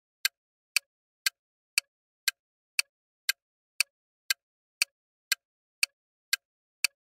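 Ticking clock sound effect, sharp even ticks about two a second, counting down a quiz answer timer.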